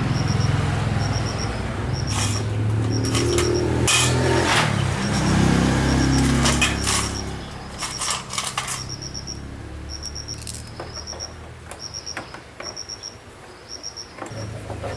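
Four-stroke motorbike engine running, its pitch rising and falling over the first several seconds as it is revved, then dropping away to a lower, quieter run before picking up again near the end.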